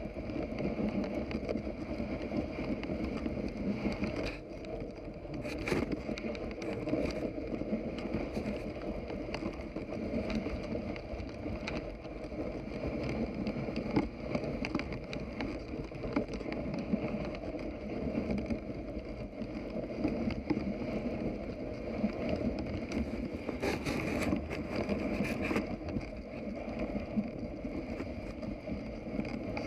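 Dog sled and team moving through deep fresh snow while breaking trail: a steady rushing noise from the ride, broken by a few sharp clicks and knocks, a cluster of them near the end.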